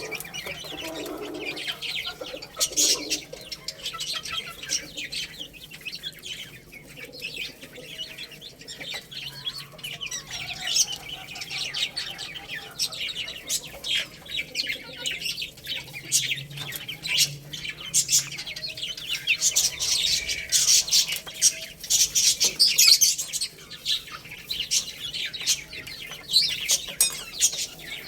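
Many baby chicks peeping continuously, a dense chorus of short high-pitched chirps.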